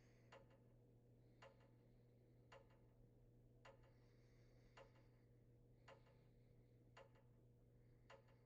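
Near silence with faint, evenly spaced ticks, about one a second, over a low steady hum.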